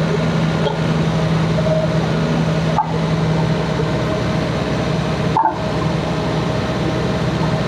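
Excavator's diesel engine running steadily while it unloads the slag, with a few brief higher-pitched squeaks about every two and a half seconds.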